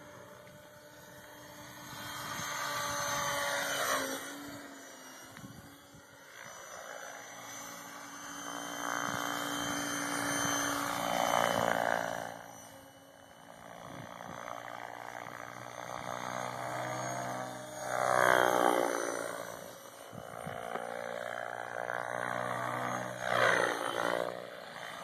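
Compass radio-controlled helicopter flying aerobatics, its rotor and drive whirring steadily. The whir swells louder, with the pitch sweeping up and down, each time the helicopter swoops past, about four times, loudest near 18 and 23 seconds in.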